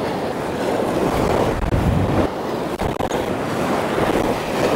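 Sea surf breaking and washing onto the shore, with wind rumbling on the microphone; a bigger surge comes about one and a half to two seconds in.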